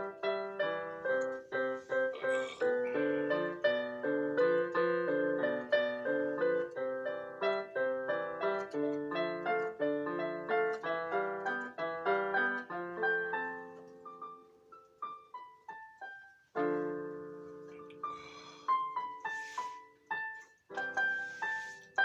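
Piano music: a busy passage of quick notes and chords that thins out about two-thirds of the way in to single notes stepping downward, then a held chord and a few more notes.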